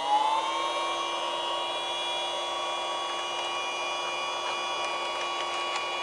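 Mini handheld USB vacuum cleaner's motor spinning up, its whine rising in pitch and settling within the first second, then running steadily at full speed. A few faint clicks come in the second half.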